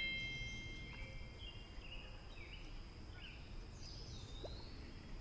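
Faint outdoor ambience of birds calling: several short chirps and a gliding whistle about four seconds in, over a steady high insect drone. A chime sound effect fades out in the first second.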